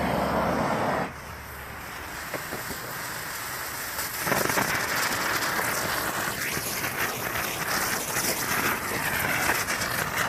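Hula hoop firework spinner going off: a short loud spurt of hissing, then from about four seconds in a loud, steady hiss with crackles and a wavering whistle-like tone near the end, stopping abruptly.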